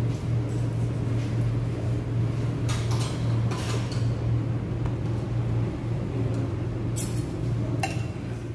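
A steady low machine hum, with a few short clicks around three seconds in and again near the end.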